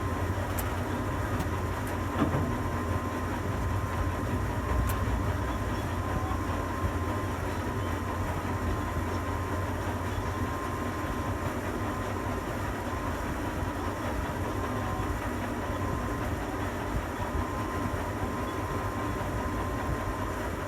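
Tower crane machinery running steadily: a low rumble with a thin steady whine on top and a few faint clicks in the first few seconds.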